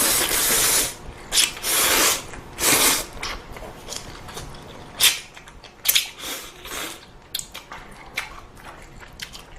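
Ramen noodles being slurped in about four loud bursts, then chewing with a string of sharp clicks and smaller noises.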